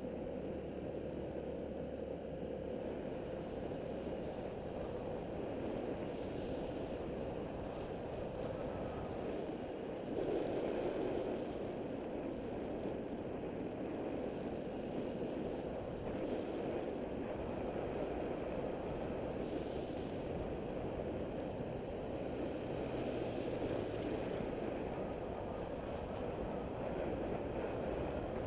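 Wind rushing over the microphone mixed with the running engine and road noise of a Taotao CY150 150cc scooter on the move: a steady noisy rumble, briefly louder about ten seconds in.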